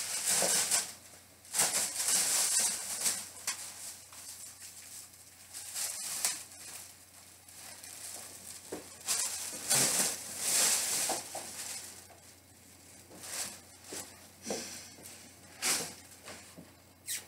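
Irregular rustling and light plastic clatter from Gundam model kit runners being handled and turned over, in bursts of about a second with quieter gaps between.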